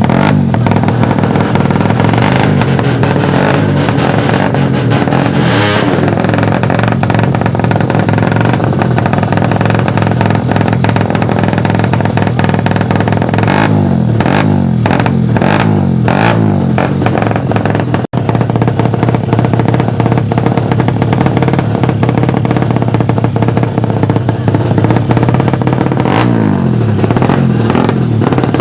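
Race-tuned Suzuki Satria FU single-cylinder motorcycle engines revving and accelerating hard, their pitch rising sharply several times. The sound cuts out briefly about two-thirds of the way through.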